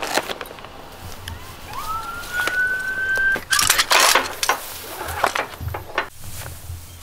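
Ratchet tie-down strap being worked tight on a load of hay bales: a run of sharp clicks and rattles, loudest about halfway through. Before it, a single faint rising tone lasting about a second and a half.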